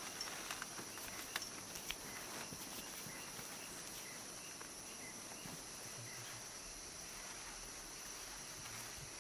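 Forest ambience of insects buzzing in a steady high-pitched drone, with faint repeated chirps and a few soft taps and rustles in the first couple of seconds.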